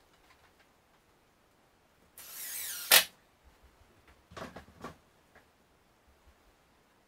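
Wooden fireplace mantel slid down onto its French cleat on the wall: a short scraping rub of wood on wood, then one sharp knock as it drops into place about three seconds in. A few softer knocks and rubs follow as it is pushed and settled.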